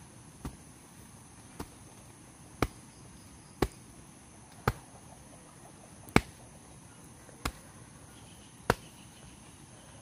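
A sharp tap about once a second, eight in all and slightly irregular, over a steady high drone of insects.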